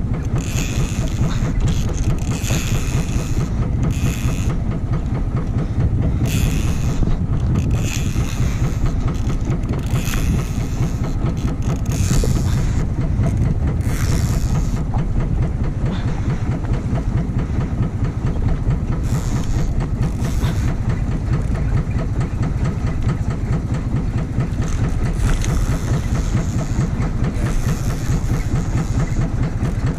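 A fishing boat's engine running steadily, with short hissing bursts of wind or water every few seconds.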